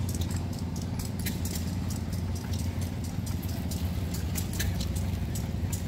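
Antique stationary gas engines running: a steady low engine drone with frequent irregular sharp clicks and ticks over it.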